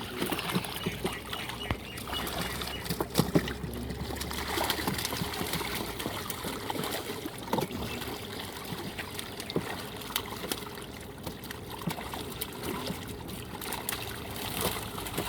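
River water trickling and splashing, with many small splashes and knocks scattered through it.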